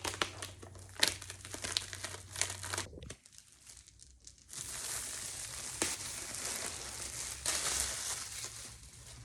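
Plastic packaging from a MacBook Air box crinkling and rustling as it is torn off and handled: irregular crackles for the first few seconds, then a steadier rustle.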